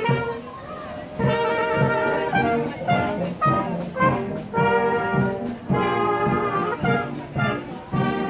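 A wind band of clarinets, saxophone and trumpets playing a tune together, with a brief lull in the playing about a second in.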